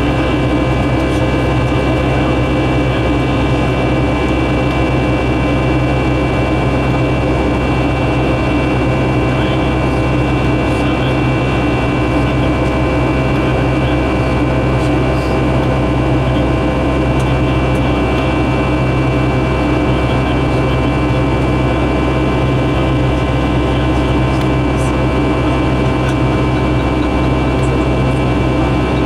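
Boeing 757-200's Pratt & Whitney PW2000 turbofan running at climb power, heard inside the cabin. A loud, steady drone with several steady whining tones over it.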